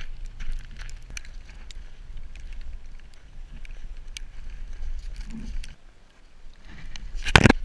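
Low rumble of wind and movement on an action camera, with scattered light crackles of snow being trodden on. A single loud, short thump near the end.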